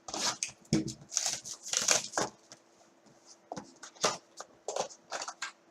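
A trading-card box being opened and its contents handled by hand. There is a busy run of rustling and scraping of cardboard and wrapping for about two seconds, then scattered light clicks and scuffs.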